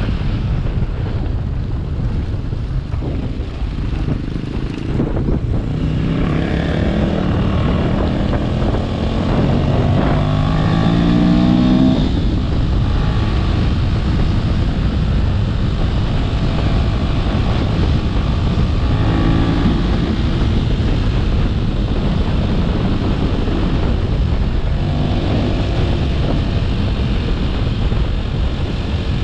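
A motor vehicle's engine running under a steady rumble mixed with wind noise. Its engine note climbs about ten seconds in, and again more faintly near twenty seconds.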